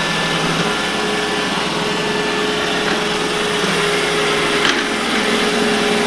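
iRobot Roomba j7 robot vacuum running, its motor and brushes whirring steadily, with one brief tick about five seconds in.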